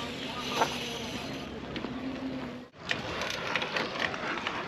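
Footsteps crunching on packed dirt, a few light steps a second, over steady outdoor background noise. The sound cuts out briefly just past halfway.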